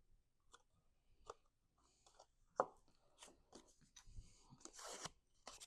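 Cardstock being handled: scattered light taps and clicks, one sharper tap about two and a half seconds in, and brief paper rustles.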